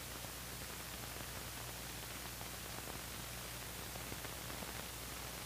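Steady hiss with a low mains hum underneath: the background noise of an old film soundtrack recording.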